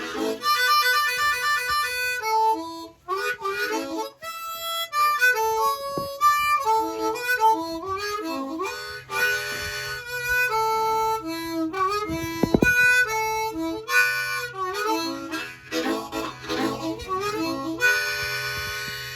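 Harmonica playing an instrumental break: quick melodic runs of short notes between held chords, one near the start and a long one near the end.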